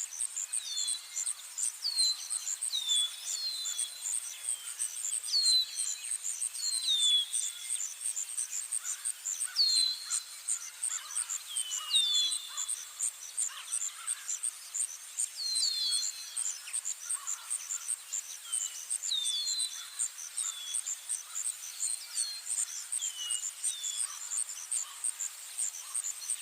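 Night insects, crickets by the look of the sound, chirping in high, even, rapid pulses without a break. Over them, birds give short, high whistled calls that slide downward, often in quick pairs or threes.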